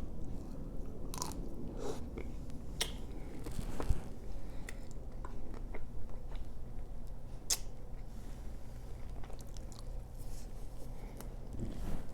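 Close-up chewing and biting of a chocolate-coated ice cream bar, with the hard chocolate shell cracking in irregular crunchy clicks between softer wet mouth sounds. A faint steady low hum sits underneath.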